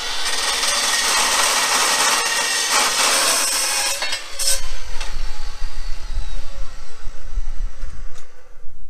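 Makita abrasive chop saw cutting through steel box section, a loud grinding hiss for about four seconds. The blade then spins down with a falling whine while a heavy, uneven low rumble takes over.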